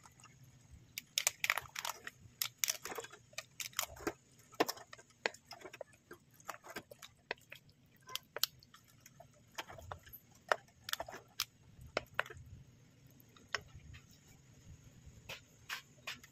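Irregular soft wet clicks and smacks of cooked spaghetti being stirred and tossed with its sauce, a few a second.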